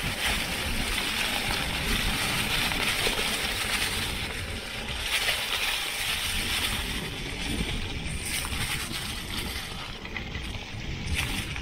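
Mountain bike tyres rolling over a carpet of dry fallen leaves: a steady rustling hiss over a low rumble from the ride.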